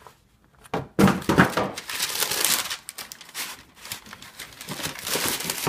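A thump about a second in, then tissue paper rustling and crinkling as it is pulled back from sneakers in a cardboard shoebox.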